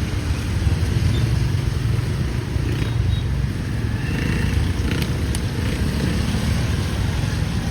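Motorbike engines running close by in street traffic, a steady low drone that swells slightly about a second in, over an even hiss of rain on the street.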